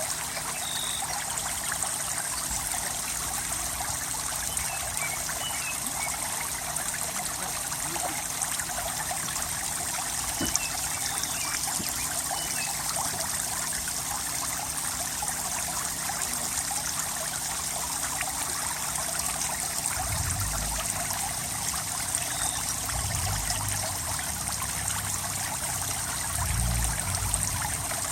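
Water running steadily over a waterfall, an even rushing wash with no break. A low rumble comes and goes underneath in the last several seconds.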